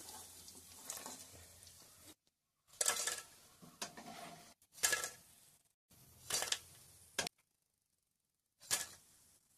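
Crisp fried tapioca chips dropped from a slotted metal ladle onto a perforated metal strainer plate: about five short clattering drops, each with a light metallic clink.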